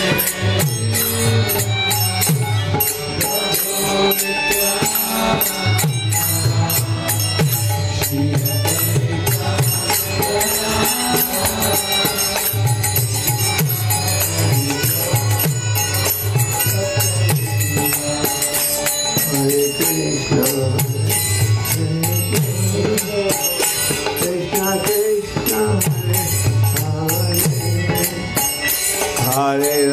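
Devotional kirtan: voices chanting a mantra over a low sustained drone, with hand cymbals (kartals) jingling in a steady rhythm.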